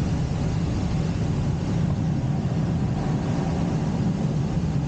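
Steady rush of wind over a glider's cockpit canopy in flight, heard from inside the cockpit, with no engine tone.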